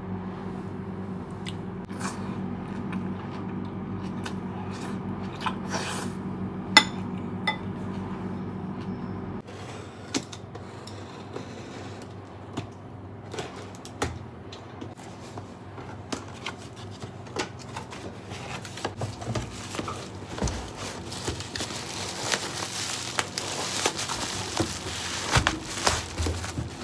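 Kitchen work sounds: dishes and utensils clinking and knocking over a steady appliance hum, which cuts off abruptly about nine seconds in. Scattered clinks and knocks follow, with a hiss building near the end.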